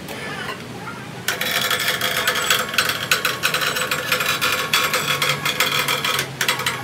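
Harsh mechanical metalworking noise that starts about a second in: a steady, rasping, scraping sound with rapid irregular clatter.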